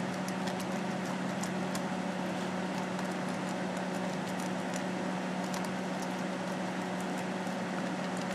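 A dog eating dry kibble from a stainless steel bowl, with faint irregular crunches and clicks, over a louder steady mechanical hum.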